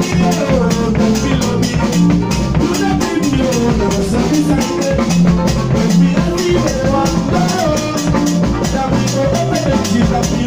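Live band playing: a drum kit keeps a steady beat while an electronic keyboard plays pitched lines over it.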